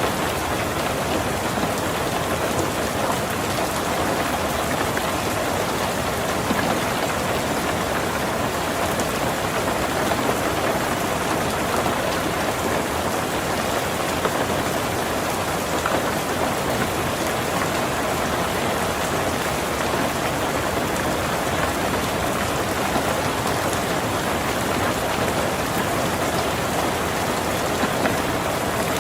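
Heavy rain drumming steadily on a tin roof, a dense, even patter of drops.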